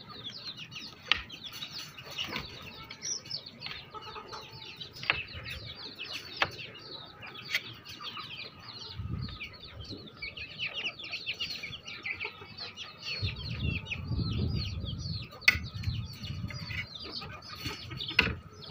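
A flock of young chickens peeping almost without pause, with hens clucking among them, as they feed. A few sharp clicks stand out above the calls, and a low rumble comes in about two-thirds of the way through.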